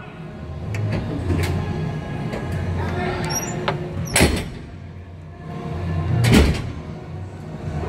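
A low, steady rumble with faint voices, broken by two sharp thuds about four and six seconds in; the second thud is the loudest.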